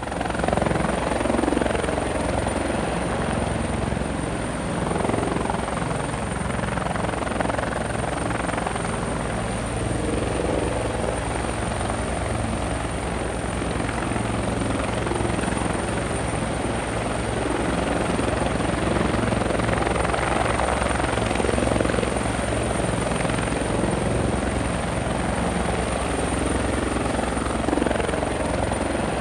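A motor running steadily with a thin, constant high whine over it.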